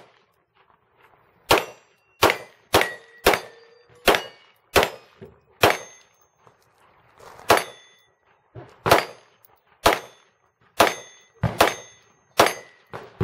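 Handgun fired about a dozen times at a steady pace, with a pause of about two seconds midway. Each shot is followed by the short, high ring of a steel target being hit.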